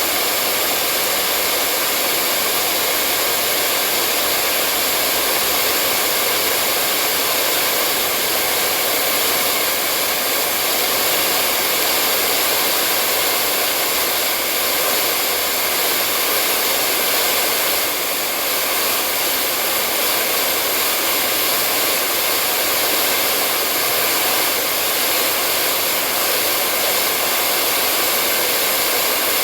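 Hair dryer running continuously: a steady, unbroken rush of air and motor hum that does not change.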